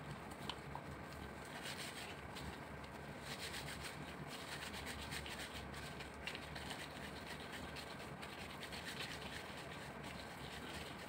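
Gloved hands scooping and rolling raw pork-and-beef mince into meatballs: quiet, scratchy rubbing of disposable gloves against the meat and each other, in many short strokes, over a faint low hum.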